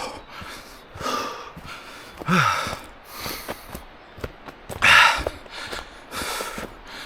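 A hiker's heavy, hard breathing while walking fast up a trail: loud huffing breaths about every second, the loudest about five seconds in, with a short voiced grunt about two seconds in and light footfalls between breaths.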